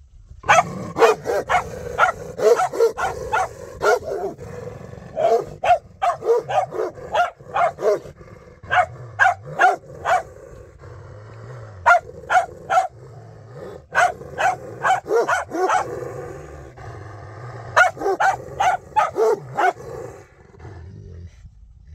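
A small short-haired tan dog barking repeatedly in quick volleys of several barks, with short pauses between the volleys.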